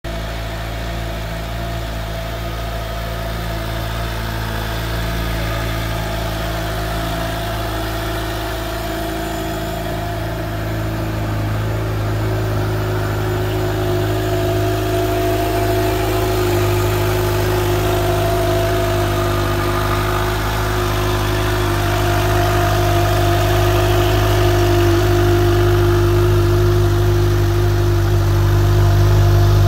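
Kawasaki Ninja H2 SX's supercharged inline-four engine idling steadily, getting a little louder toward the end.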